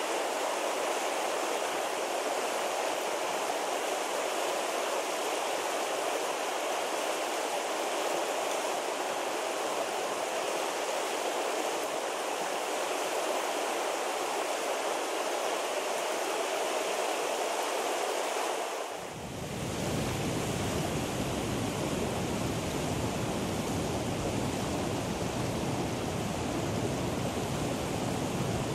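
A shallow rocky river rushing over stones, a steady hiss of water. About two-thirds of the way through, after a short dip, the noise turns deeper and fuller, with a low rumble.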